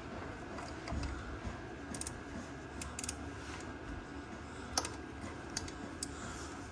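Scattered light clicks and taps of hand tools and metal parts being handled during engine assembly, over a faint steady background.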